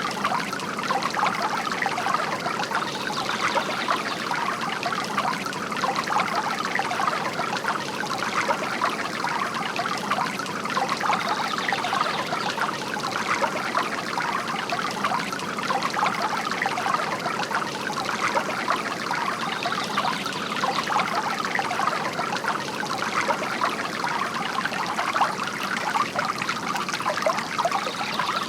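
Water trickling steadily from a bamboo garden fountain.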